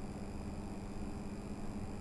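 Steady low background hum with faint hiss.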